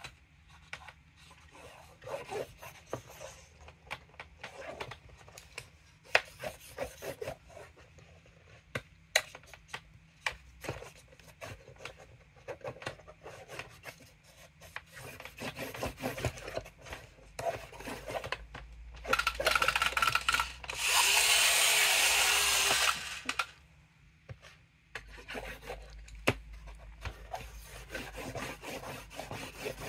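Plastic magnetic pen scratching and tapping on the screen of a MegaSketcher magnetic drawing board in short, irregular strokes. Around twenty seconds in comes a louder scraping lasting about four seconds, the board's eraser slider being dragged across to wipe the drawing.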